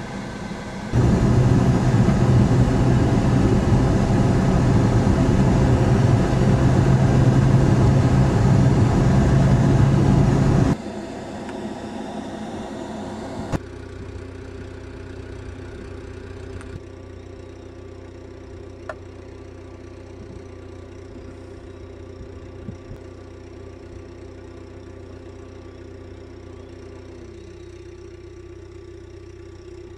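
Car engine and road noise heard from inside the vehicle: a loud rumble and hiss for the first ten seconds or so, then, after a sudden drop, a quieter steady engine hum with a few even tones, one of which sags slightly near the end.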